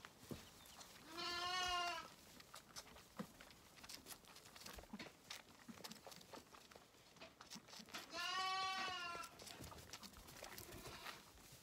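Zwartbles lambs bleating: two wavering calls of about a second each, one early and one about eight seconds in. Faint rustling and small clicks of straw and hooves in between.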